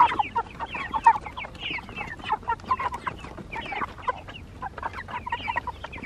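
A flock of eight-week-old Cornish Cross meat chickens calling all at once: many short, overlapping calls.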